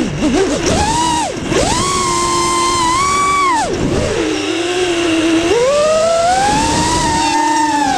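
FPV drone's electric motors whining, the pitch rising and falling with the throttle. It dips and climbs quickly at first, holds high for a second or two, drops low near the middle, then climbs slowly again and falls near the end.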